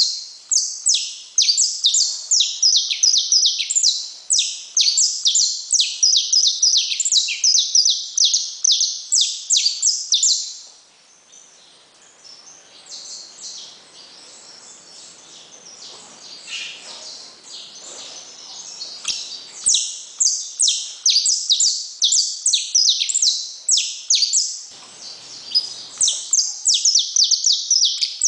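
Male saffron finch (canário-da-terra) singing: fast runs of high, sharp notes, many to the second. The song breaks off at about ten seconds, goes on faintly and softer for several seconds, and comes back loud just before twenty seconds.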